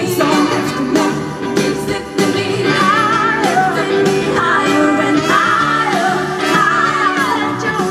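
Live soul band playing: drums, bass, guitar and keys. A woman's lead vocal comes in about three seconds in, with gliding, wavering sung lines.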